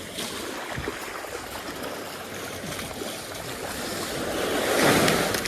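Surf washing onto a sandy beach, with one wave surging in and growing loudest near the end.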